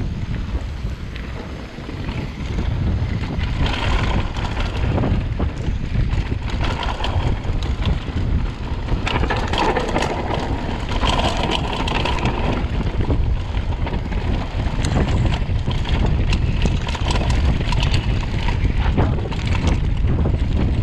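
Wind rushing over the microphone of a mountain bike descending a dirt trail at speed, with the tyres running over dirt and the bike rattling over bumps in many sharp clicks, the tyre noise swelling around four seconds in and again around ten seconds in.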